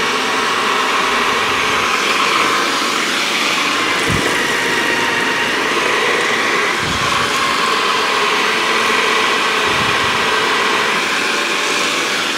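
Cecotec Foodprocessor Paprika 2000 Full's motor running steadily, spinning its citrus-juicer reamer while orange halves are pressed onto it. A few dull low thumps come through along the way.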